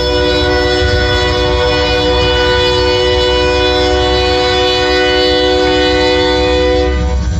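Freight locomotive air horn held in one long, steady blast over the low rumble of the passing train, cutting off about seven seconds in.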